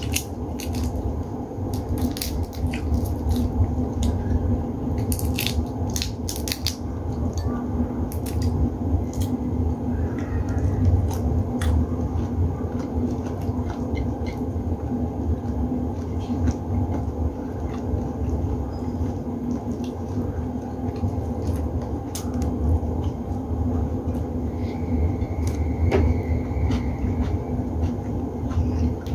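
Cooked shrimp being peeled by hand, the shells cracking and snapping in scattered sharp clicks, most often in the first several seconds, over a steady low hum.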